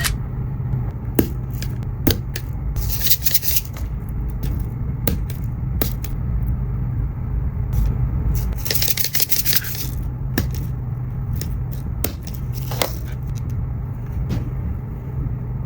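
Small plastic beads clicking and clattering as they are handled and slid onto a beaded pen: irregular sharp clicks, with longer rattling scrapes about 3 and 9 seconds in. A steady low hum runs underneath.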